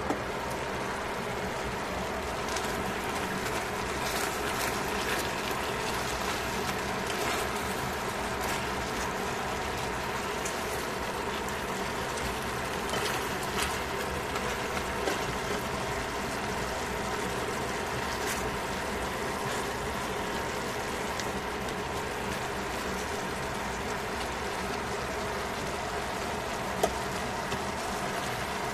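Pork and vegetables sizzling and bubbling in a metal pot, with scattered crackles, over a steady hum. A short clank right at the start as the glass lid is lifted, and a single sharp tap near the end.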